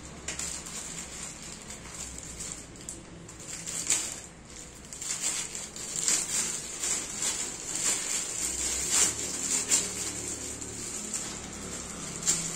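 Clear plastic film wrapping crinkling and rustling as hands handle it and work it loose, in irregular crackles that grow busier in the second half.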